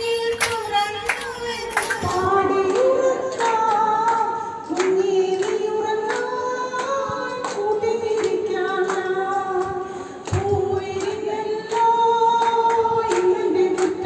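Women's voices singing a song together, the melody held in long, sliding notes, with a steady beat of hand claps about twice a second.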